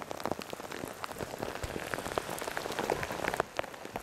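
Rain falling, with many drops striking a hard surface close by in quick irregular clicks.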